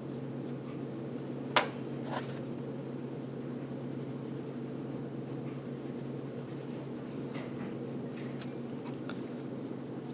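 Green Scotch-Brite pad lightly rubbing back and forth on a bone-dry, unfired clay object, a soft faint scratching, with one sharp click about one and a half seconds in and a smaller one just after, over a steady low hum.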